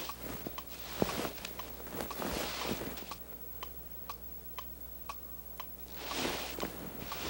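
Steady ticking, about two ticks a second, clearest in a quieter stretch in the middle. Louder rustling or shuffling comes at the start and again about six seconds in.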